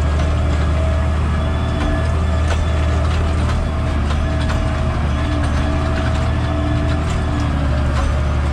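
Case tractor's diesel engine running steadily under load, heard from inside the cab while pulling a seed drill across the field. A deep, even hum, with scattered light clicks and rattles.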